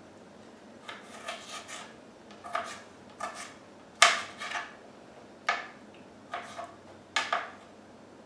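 Kitchen knife chopping food: about fifteen sharp strokes against the cutting surface in short irregular clusters, the loudest about four seconds in.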